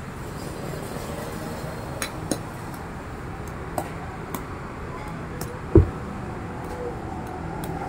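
A few light clicks and clinks over a steady background noise, with one louder dull thump about six seconds in.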